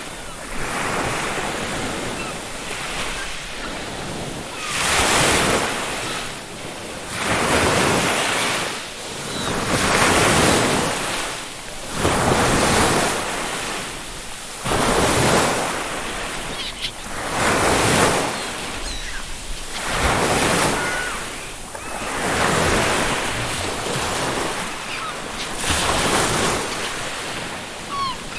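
Ocean waves breaking on a beach, the surf swelling and falling back about every two to three seconds, with a few faint, short seagull calls.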